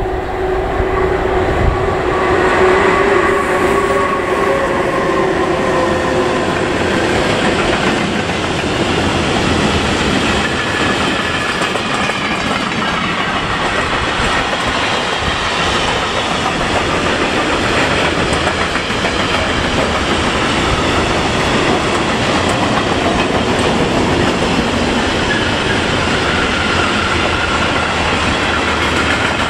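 Electric locomotive passing at the head of a long freight train, with a whine in the first several seconds. The tank wagons and covered goods wagons then roll by with a steady clatter of wheels on the rails.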